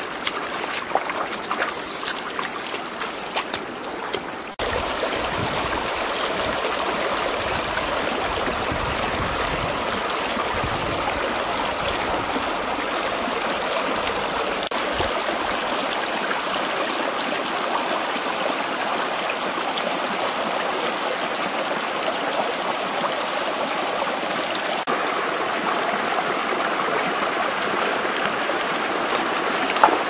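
Bare feet splashing through a shallow rocky stream for the first few seconds, then the steady rush of the stream's flowing water.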